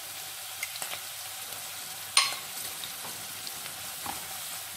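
Chopped capsicum sizzling in melted butter in a pan while flour is sprinkled in, with one sharp knock about two seconds in. Near the end a wooden spatula starts stirring the flour through.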